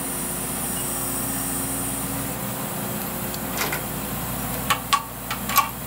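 Dump truck engine idling steadily, with several short clicks and knocks in the last couple of seconds.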